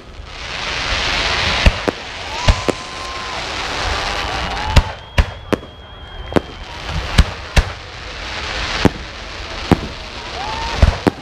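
Aerial fireworks shells bursting: an uneven run of about a dozen sharp bangs over a dense hiss of crackling, glittering stars. The hiss is loudest in the first second or two.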